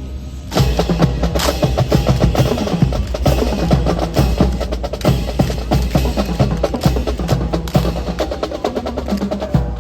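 Percussion-heavy music with rapid drum strokes and sharp wood-block-like clacks, starting about half a second in, over a steady low rumble.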